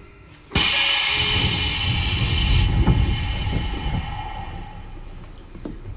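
Compressed air released from a Sotetsu 9000 series commuter train as it comes to a stand at a station: a clunk about half a second in, then a sudden loud hiss of air that eases off over the next few seconds.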